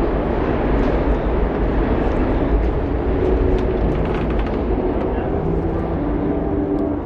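Steady low rumble of city street noise. Soft background music with held notes comes in about halfway through.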